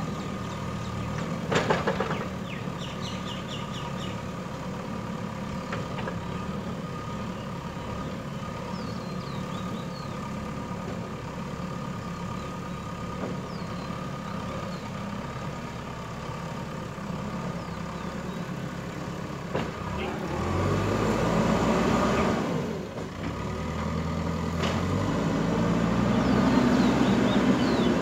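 The diesel engine of a JCB backhoe loader runs steadily while loading soil into a tipper truck. About two seconds in there is a brief loud clatter as a bucketload drops into the truck bed. Later the engine works harder for a couple of seconds, and it builds again near the end.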